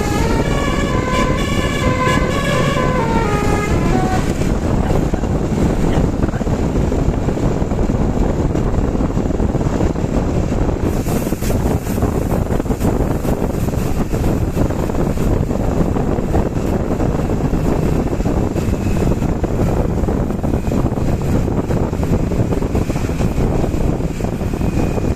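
Bus basuri telolet horn playing a multi-note melody that ends on falling notes about four seconds in. After it comes a loud, steady rumble of wind and road noise.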